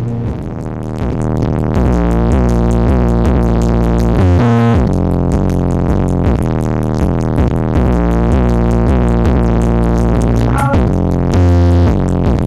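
Electronic dance music with heavy, deep bass played loud through a large 'horeg' sound system with twelve subwoofers, as a sound check. A rising sweep comes about four seconds in, and a short break about ten seconds in.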